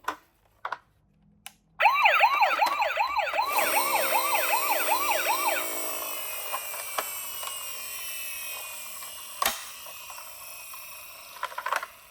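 A toy ambulance siren wailing in fast up-and-down sweeps, about three a second, starting about two seconds in and fading away over the next several seconds. A few light clicks come before it and one sharp click comes later.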